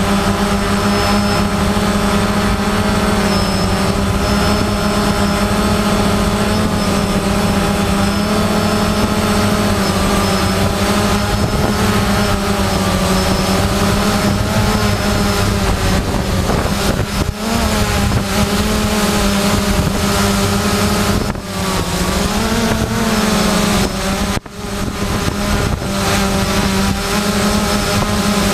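Farm machinery running steadily while grain pours from a gravity wagon into the hopper of a grain auger: a constant engine drone under the hiss of flowing grain, with a few brief dips in level.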